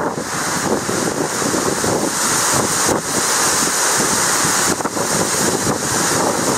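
Loud storm wind blowing steadily, with a hiss of heavy rain and wind buffeting the microphone.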